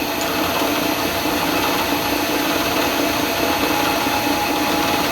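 Milling machine motor and spindle running steadily, a constant hum with a few held tones.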